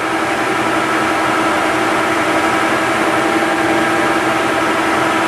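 Cincinnati Hydrashift engine lathe running with its longitudinal power feed engaged: a steady machine hum with a constant mid-pitched gear tone.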